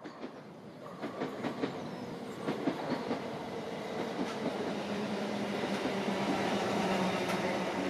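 Peppercorn A1 steam locomotive 60163 Tornado approaching at high speed, growing steadily louder. Wheel-on-rail clicks sound in the first few seconds, and a building roar of steam blows from its lifting safety valves.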